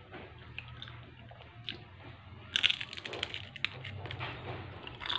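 Biting and chewing on a crispy fried snack on a skewer, heard close up: scattered faint clicks, then a dense run of crunching about two and a half seconds in, over a faint low hum.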